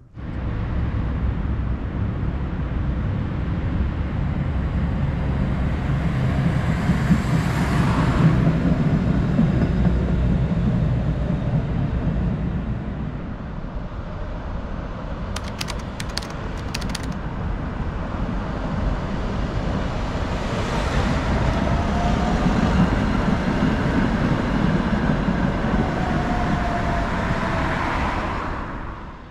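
Street traffic beside tram tracks: cars and an electric tram going past, a steady rumble that swells and fades twice, with a few light clicks in the middle and a faint whine as the tram passes close near the end.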